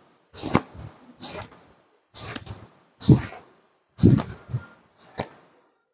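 Long wet hair being towel-dried: a towel swished and slapped against the hair in six sharp strokes, roughly one a second.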